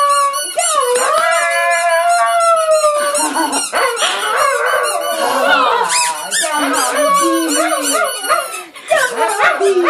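A small dog howling and whining in long, wavering notes while a rubber squeaky toy is squeezed at it.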